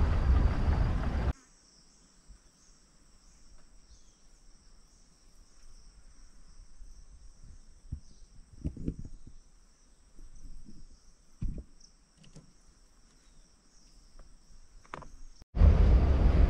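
Steady, high-pitched insect chorus in forest, slightly wavering, with a few soft low thumps in the middle. Loud vehicle noise cuts off about a second in and comes back about a second before the end.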